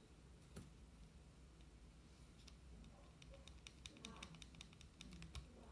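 Faint, rapid plastic clicking of the loose lid on a Sabbat E12 Ultra earbud charging case as it is wiggled on its hinge, starting about two and a half seconds in. The rattle is the sign of a poorly fitted lid on a new case.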